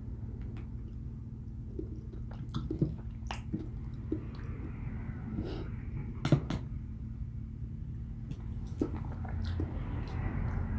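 Close chewing and wet mouth clicks of someone eating, scattered and irregular, the sharpest click about six seconds in, over a steady low hum.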